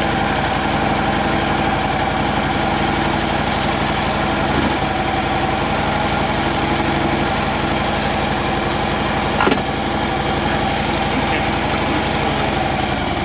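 Motorcycle engines idling steadily, with a short knock about nine and a half seconds in.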